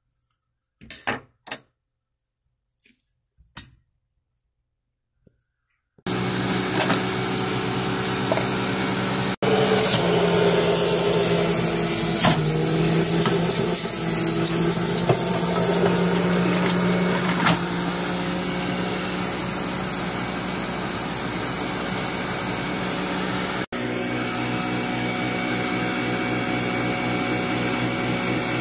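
Electric centrifugal juicer motor running steadily under load, with a steady whine; it comes on suddenly about six seconds in after a few faint taps, and its pitch dips for a moment as fruit is pushed in.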